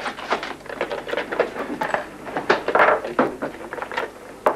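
Metal clicks and knocks as the latch and lid of a pigeon racing clock are worked open by hand.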